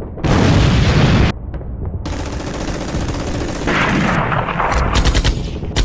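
Gunfire sound effects. There is a loud blast lasting about a second just after the start, then a steadier stretch of firing, and rapid machine-gun bursts near the end.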